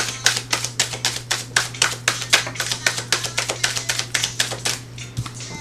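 A deck of tarot or oracle cards being shuffled by hand: a quick, even run of card clicks, about five or six a second, that stops about five seconds in.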